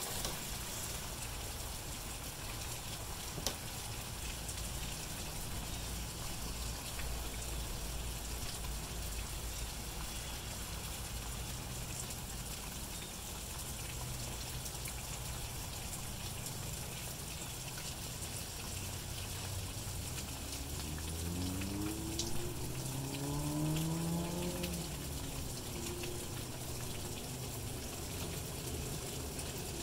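Steady rain falling, an even hiss of drops. About two-thirds of the way through, a pitched hum rises and then falls for a few seconds.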